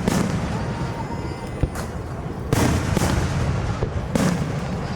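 Aerial fireworks shells bursting: a series of sharp booms, the strongest near the start, about two and a half seconds in and a little after four seconds, over a continuous low rumble.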